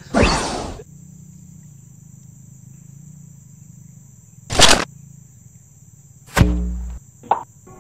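Edited-in sound effects: a loud falling whoosh, then two sharp hits about two seconds apart, the second with a low rumble, and a short pitched blip. A steady high insect trill runs underneath, and music begins right at the end.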